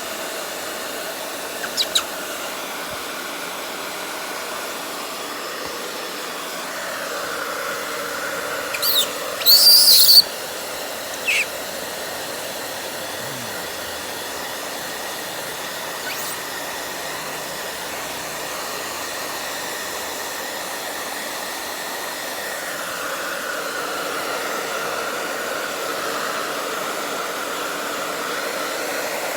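Hair dryer blowing steadily, its tone shifting now and then as it is moved about. A few short, high-pitched squeals from the baby monkey cut in, the loudest about ten seconds in.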